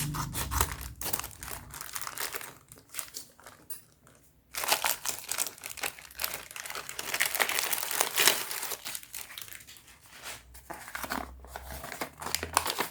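Plastic parcel packaging crinkling and rustling in the hands as it is opened, in irregular crackles with a brief lull about four seconds in.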